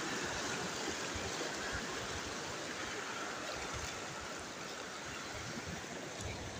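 Shallow seawater washing over a rocky shore, a steady rush with no separate splashes standing out.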